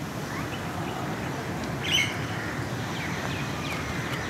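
Small birds chirping, with one sharper chirp about two seconds in, over a steady rustling noise.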